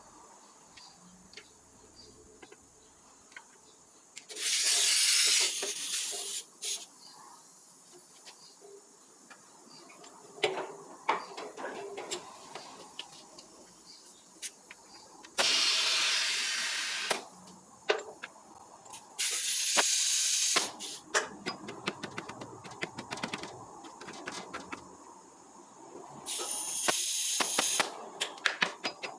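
Compressed air hissing from an air hose in four short bursts of about two seconds each, with light clicks and knocks of handling between them.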